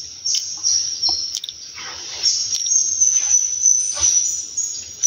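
Insects trilling steadily at a high pitch in the forest, with a few short scuffing noises from about a second in.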